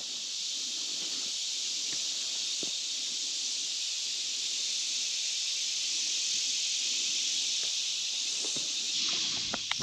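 Steady high-pitched drone of a summer woodland insect chorus, with a few faint footfalls on the trail, sharper near the end.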